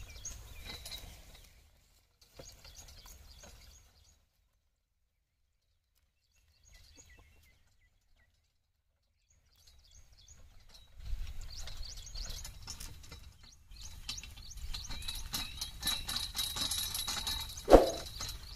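Outdoor field ambience with birds chirping. The sound drops to near silence for several seconds in the middle, then returns louder with a steady high hiss, and a single sharp knock comes near the end.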